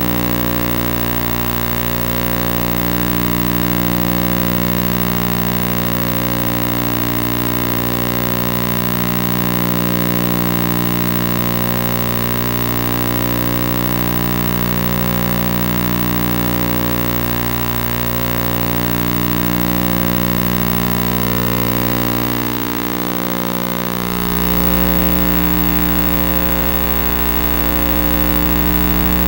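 A loud, steady electronic drone of many held tones that swell and fade slowly, like a sustained synthesizer pad. Its sound changes about three quarters of the way through.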